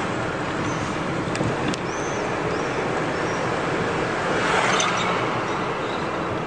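Steady road and engine noise from inside a moving car's cabin, swelling slightly a little past four seconds in.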